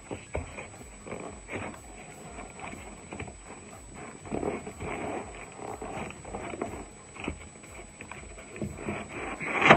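Cardboard box being handled by gloved hands: irregular rustling, scraping and light knocks of cardboard flaps and an inner box lid, with one louder knock near the end.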